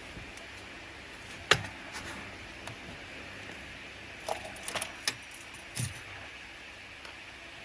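Small metal tools and parts clinking and clicking over a steady hiss: one sharp click about a second and a half in, a quick run of clinks around four to five seconds, and a duller knock near six seconds.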